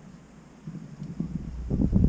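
Wind buffeting the GoPro Hero5 Session's built-in microphone: faint at first, then low rumbling gusts that build up and grow louder from about half a second in.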